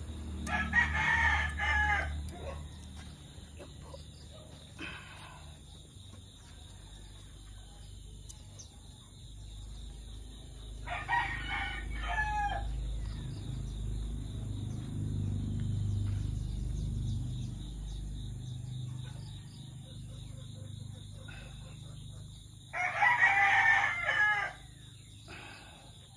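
A rooster crowing three times, about ten seconds apart, each crow lasting under two seconds. A low rumble swells and fades between the second and third crows.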